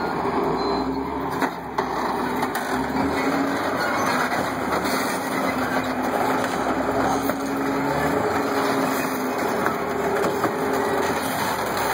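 A tank's engine running under load with a steady drone while its tracks grind over a sedan, crushing the car, with occasional small knocks and creaks from the car's body.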